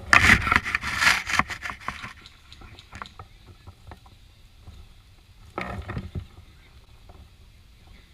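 Rustling and scraping close to the microphone, loudest for the first two seconds, with scattered faint clicks and a second short burst about six seconds in.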